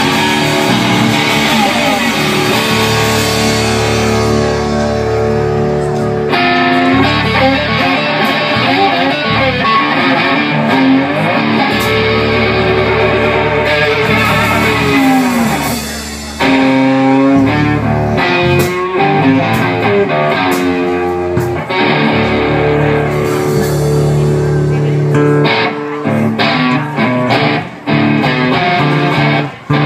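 Live blues band: a metal-bodied resonator guitar played slide, its notes gliding up and down, over electric bass and a drum kit. Drum hits become more prominent in the last few seconds.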